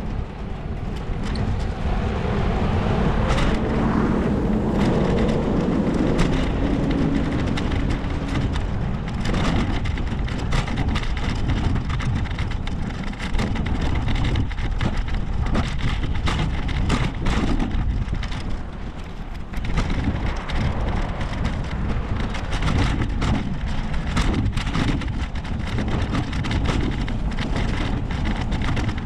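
Wind noise buffeting the microphone of a camera on a moving bicycle, mixed with road traffic; a motor vehicle passes a few seconds in, then gusts come and go.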